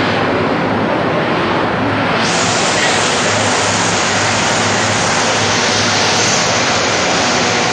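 Steady, loud din of a tractor assembly line: an even rushing noise of machinery and air in a large factory hall, with no single event standing out.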